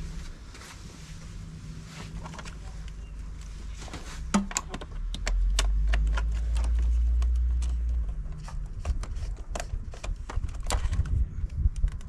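Scattered sharp clicks and knocks of a socket wrench and hands working a 10 mm bolt on the 100 amp fuse terminal in a car's engine-bay fuse box, growing denser over the last few seconds. A low rumble runs from about five to eight seconds in.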